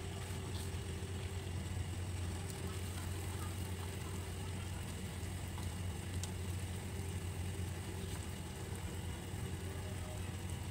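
Steady low hum with a faint hiss around a saucepan of water boiling on a gas hob, with a few faint ticks.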